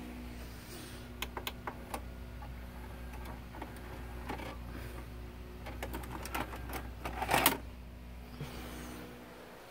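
Series of sharp mechanical clicks and rattles, the loudest a brief noisy clatter about seven seconds in, over a steady low electrical hum that fades out near the end.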